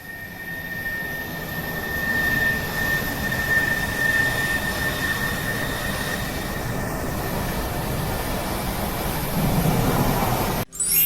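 Jet aircraft engine noise fading in over the first couple of seconds, then running steadily with a thin high whine above it, cut off abruptly near the end.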